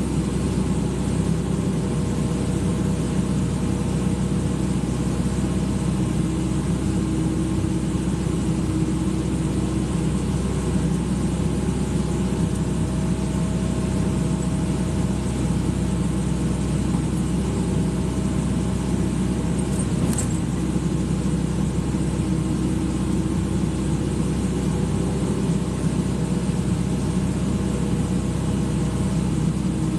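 Excavator engine running steadily, with a few held tones that shift slightly in pitch now and then.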